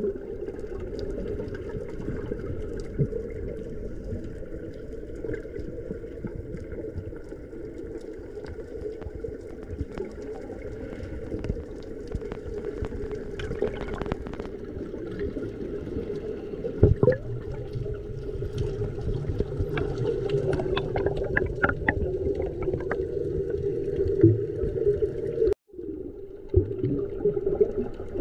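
Muffled underwater sound picked up by a camera held below the surface while snorkeling: a steady low drone with water noise, scattered clicks and a few bubbling moments. It cuts out suddenly for an instant near the end.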